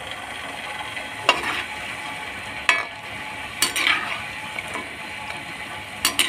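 Besan pakoris deep-frying in hot oil, a steady sizzle, while a metal slotted spoon stirs them and clinks against the kadhai a few times.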